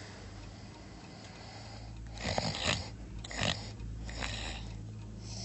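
A person snoring: a quiet stretch, then three loud snores about a second apart.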